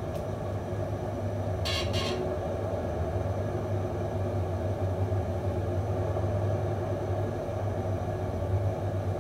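Electric potter's wheel running steadily with a low motor hum, wet clay spinning against the potter's hands with a steady rushing noise over it.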